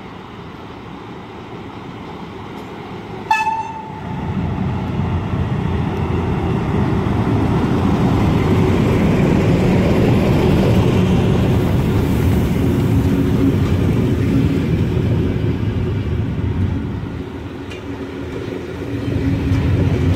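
A train passing: a short, sharp horn toot about three seconds in, then a rumble that builds to a peak and fades away, swelling again near the end.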